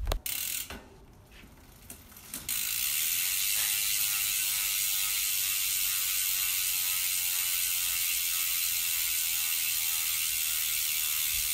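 Hope mountain-bike hub freewheeling, its pawls clicking so fast that they run together into a loud, steady buzz. The buzz starts about two and a half seconds in, after a short quiet spell.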